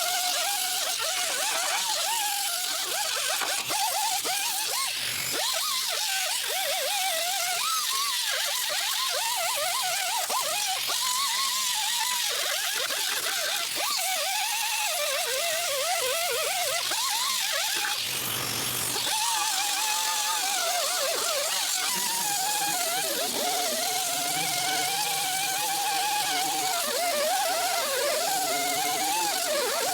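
Handheld electric power tool running under load, a steady whine whose pitch wavers up and down as it is pressed against the metal, with a hiss over it. It breaks off briefly about two-thirds of the way through.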